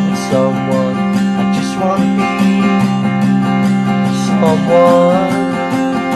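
Song with acoustic guitar strummed in a steady rhythm, and a melody line with sliding notes over it.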